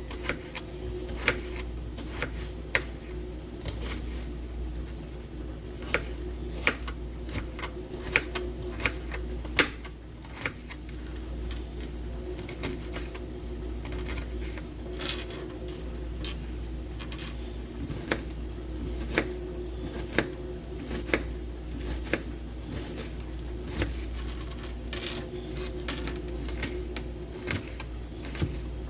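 Knife cutting an onion on a cutting board: irregular sharp taps, one or two a second, some louder than others, over a steady low hum.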